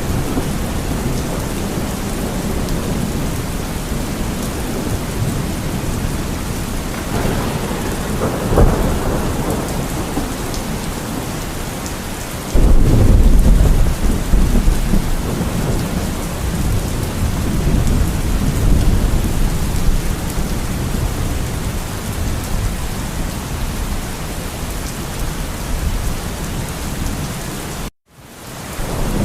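Steady heavy rain with rolling thunder; about twelve seconds in a loud, deep thunder rumble starts abruptly and then slowly dies away. Near the end the sound cuts out for a moment and fades back in.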